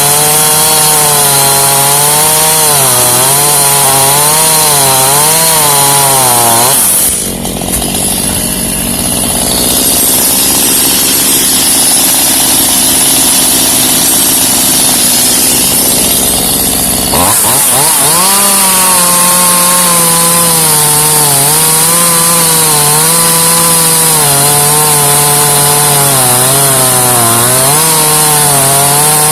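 Chainsaw running loud at high speed with its pitch wavering. About seven seconds in, the pitch drops and the sound turns lower and rougher for about ten seconds, as the engine slows under load in a cut through pecan wood. It then sweeps back up to high revs.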